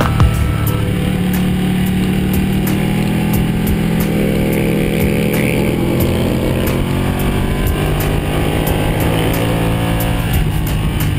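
Ducati Panigale's V-twin engine pulling hard in third gear, its pitch rising as the bike accelerates, with wind rush over the onboard camera.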